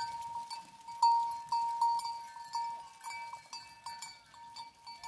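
Metal bells on a herd of walking goats, clinking irregularly: one clear bell note struck again and again, about three times a second, with the jangle of other bells behind it.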